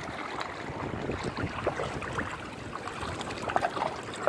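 Tidal floodwater draining into an open storm drain, a steady swirling rush of water. The flooding is receding as the king tide goes out.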